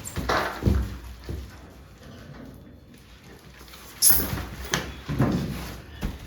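Handling noises: a series of short knocks and thuds, with a sharp rustle about four seconds in, the loudest sound.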